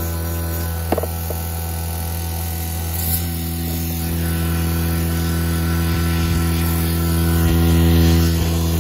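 An 8 CFM refrigerant vacuum pump runs steadily with a deep motor hum. A couple of sharp clicks about a second in come from its brass hose fittings being handled.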